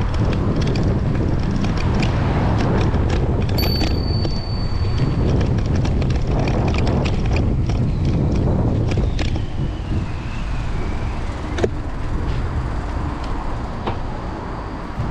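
Steady road and traffic rumble with wind on the microphone, scattered clicks, and a brief high steady tone about three and a half seconds in.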